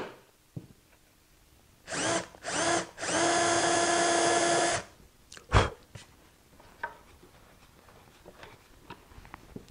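Cordless drill boring a pilot hole into a wooden tabletop's underside: two short bursts, then a steady run of under two seconds. A single sharp knock follows soon after.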